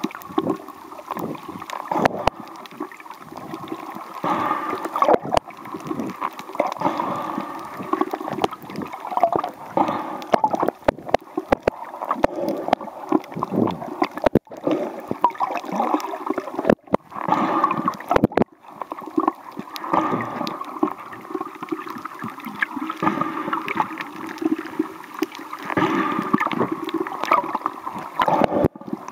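Muffled, surging water sloshing and gurgling, heard underwater through the camera's own microphone while snorkelling, with scattered sharp clicks.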